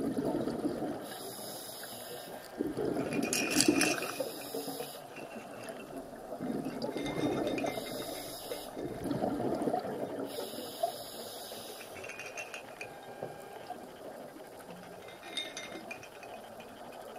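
Scuba regulator breathing underwater, heard through a camera's underwater housing: a hiss on each inhalation alternates with bubbling gurgles of exhaled air, in slow cycles a few seconds apart.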